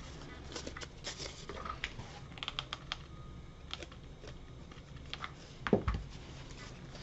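Scattered light clicks and paper rustles as a crepe-paper leaf and a hot glue gun are handled. A louder knock comes about six seconds in, as the glue gun is set back down on the table.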